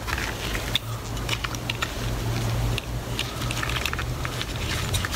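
Light clicks and rustles of a 2003 Corvette Z06 six-speed shifter assembly, just lubricated, being picked up and worked by a gloved hand, over a steady low hum.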